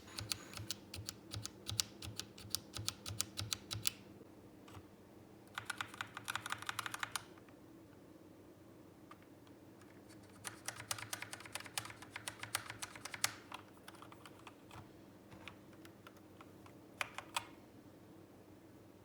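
Typing on a Zet Blade Pro keyboard with optical red switches: quick runs of keystrokes in several bursts with pauses between them, ending with a few single key presses.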